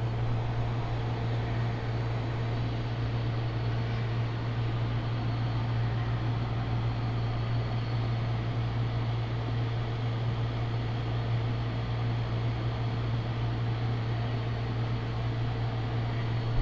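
Portable air conditioner running steadily: a constant low hum under an even rush of fan air.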